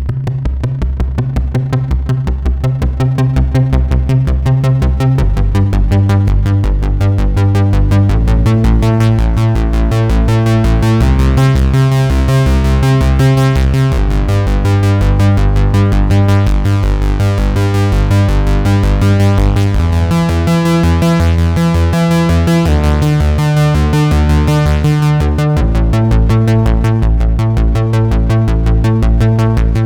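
Sequential Circuits Pro-One monophonic analog synthesizer playing a fast, evenly pulsing bass pattern whose pitch steps to a new note every couple of seconds. The tone grows brighter and buzzier through the middle as the filter opens, then darkens again.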